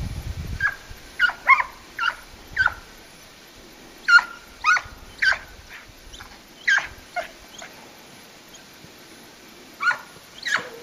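A hare-hunting hound (stövare) giving tongue: about a dozen short, high cries, each falling in pitch, coming irregularly in clusters of two or three. This is the baying a scent hound makes while it runs the hare's track.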